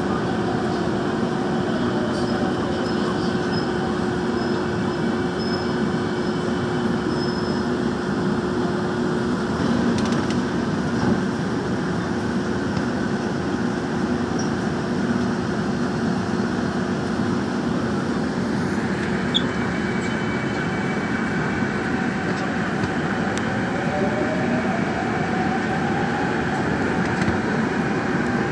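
Daejeon Metro Line 1 subway train heard from inside the car as it runs through a tunnel: a steady rumble of wheels on rail with a constant hum. A whine rises in pitch over the last few seconds.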